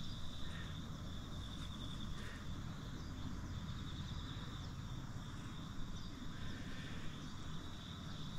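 Steady, high trilling of an insect chorus, with a low outdoor rumble beneath and a few faint short chirps in the first few seconds.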